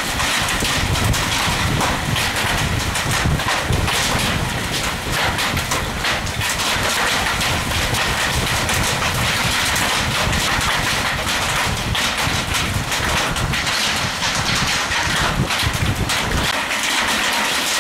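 Strong wind buffeting the microphone: a steady rushing noise with heavy, irregular low rumbles that ease off near the end.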